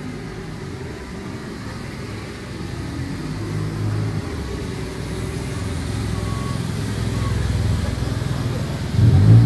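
A vehicle engine running close by with a low, steady hum that grows louder from about three seconds in. It gets louder again near the end.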